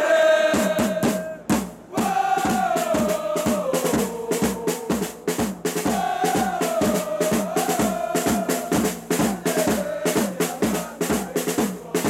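Football supporters' drums, large strap-hung marching drums and a snare struck with sticks, beating a fast, steady rhythm, with the crowd singing a chant melody in unison over them. The drumming breaks off briefly just before two seconds in, then resumes.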